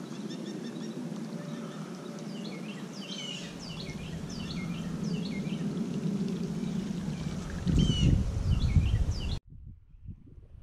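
Small birds chirping in quick repeated calls over a steady low watery gurgle from a Whopper Plopper topwater lure, its spinning tail churning the surface as it is reeled in. Near the end a louder low rumble comes in, then the sound cuts off suddenly.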